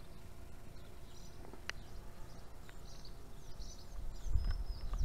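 Small birds chirping now and then in the background, with faint clicks of a rubber grommet and cables being handled at the base of a fibre-optic distribution box. A low rumble comes in about four seconds in.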